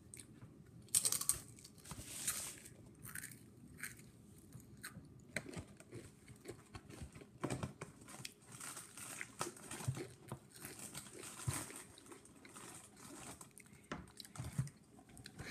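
A child biting into and chewing Bretons popped crackers: a few loud crunches in the first three seconds, then quieter, irregular crunchy chewing.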